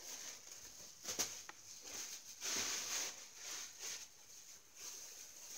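Clothes rustling and being handled, with irregular swells of fabric noise and a couple of sharp clicks about a second in.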